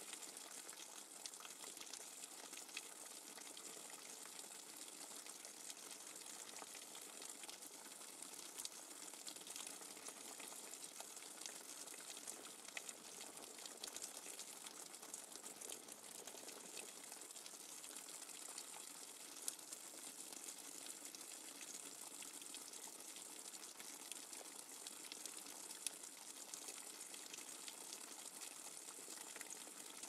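Rainwater dripping fast and hard: a dense, steady run of drops, with a few sharper drops standing out now and then.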